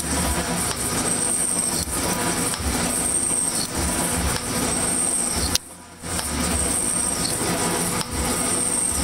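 Smith & Mills metal shaper running, its ram stroking back and forth as the tool cuts aluminum, a mechanical clatter that repeats with each stroke every second or two. The sound drops out briefly a little past halfway.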